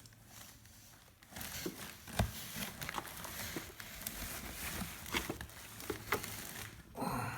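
Packaging being handled during an unboxing: a soft rustle with scattered light clicks and knocks, starting about a second in, with one sharper knock about two seconds in.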